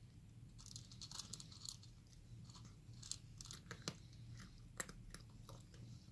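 A cat chewing and crunching its food: irregular crisp crackles with a few sharp clicks, thickest about a second in, faint over a low steady hum.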